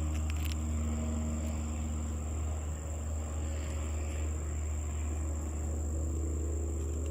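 Steady low hum, with a constant high-pitched trill above it like crickets.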